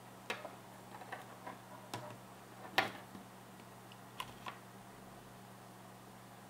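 A handful of irregular light clicks and taps, the loudest nearly three seconds in, over a steady low hum.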